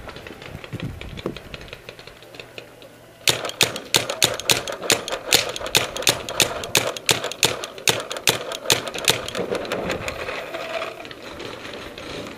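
Paintball markers firing a rapid run of sharp pops, about four a second, starting suddenly about three seconds in and thinning out near the end.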